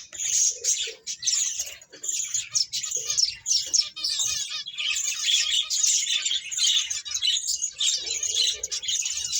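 Finches chirping in quick, overlapping calls with no break.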